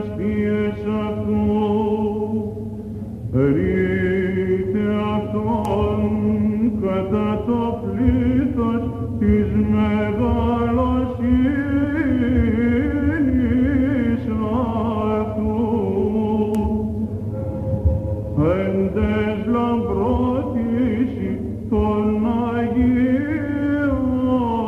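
Greek Orthodox Byzantine chant: a male cantor sings a winding, ornamented melody over a steady held drone (the ison). The voice breaks off briefly twice, each time starting a new phrase with a rising line, on an old recording with the high end cut off.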